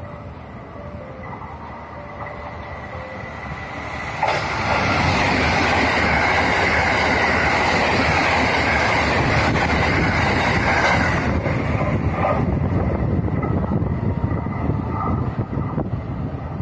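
JR West 683 series limited express electric train running through the station without stopping. It builds as it approaches, becomes a loud, steady rush of wheels on rail from about four seconds in as the cars pass, then fades after about eleven seconds.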